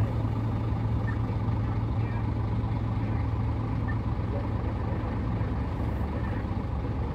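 Diesel engines running steadily: a low, even hum with no sudden knocks or changes.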